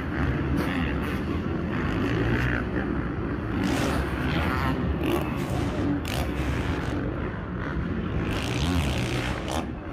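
Dirt bike engines running and revving on a supercross track, with a steady low drone and one slight rise and fall in pitch near the end.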